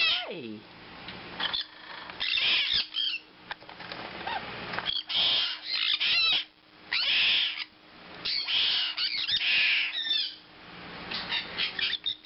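Baby sun conures in a weaning cage making repeated harsh, raspy squawks, each about half a second long, with a few short chirps between them. These are the hungry begging calls of weaning chicks.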